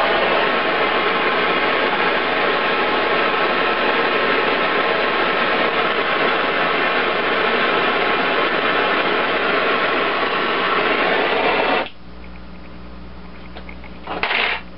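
Portable oxyacetylene torch flame hissing steadily while it heats a nut for silver brazing, cutting off abruptly about twelve seconds in. A short knock follows near the end.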